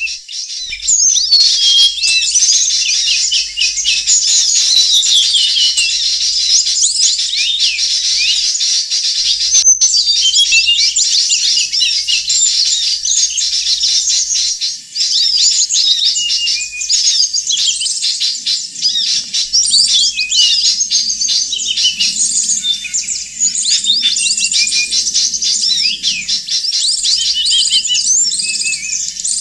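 Dense chorus of many small songbirds chirping and twittering at once, high-pitched and unbroken, as used in a bird-trapping lure recording. A single sharp click about ten seconds in.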